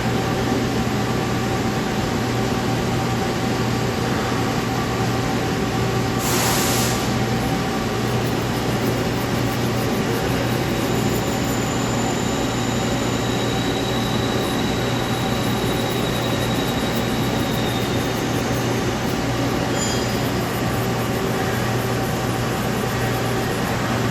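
Nomura NN-25YB Swiss-type CNC lathe running, a steady machine hum and whir, with a short hiss about six seconds in and faint high whines later.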